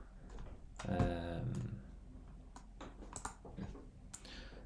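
Computer mouse clicks and keyboard taps, a handful of sharp separate clicks, mostly in the second half.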